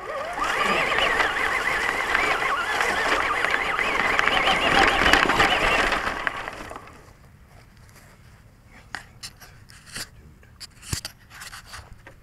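Traxxas Stampede RC truck's electric motor and gears whining as it drives over grass, the pitch wavering up and down with speed, heard from a camera mounted on the truck. The whine stops about seven seconds in, leaving small clicks and knocks as the truck is handled.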